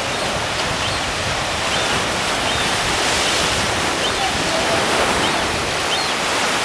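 Ocean surf breaking and washing over shoreline rocks: a steady rushing hiss of waves.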